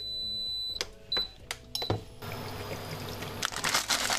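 Induction cooktop beeping: one long beep, then two short beeps with clicks of its buttons, after which a low steady hum sets in as it starts heating. About three and a half seconds in, a plastic instant-noodle packet crinkles as it is handled.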